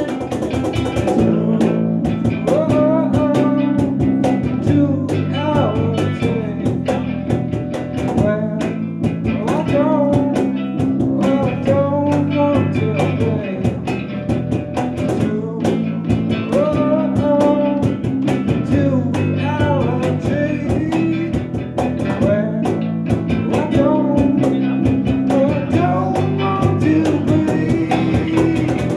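Small rock band playing live: a male voice singing a melody over acoustic guitar and bass guitar, with a steady beat.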